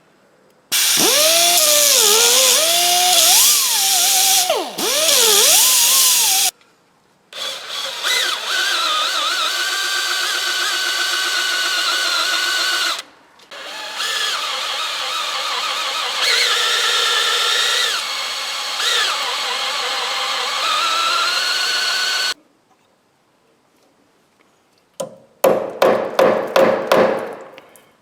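Power drill running in three long stretches with short stops. Its whine dips and rises in pitch in the first run and holds steadier in the later ones. Near the end come a few seconds of rapid stuttering pulses.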